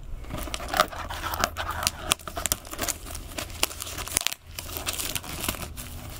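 Clear plastic shrink wrap being torn and peeled off a cardboard product box, crinkling and crackling irregularly, with a brief lull about four seconds in.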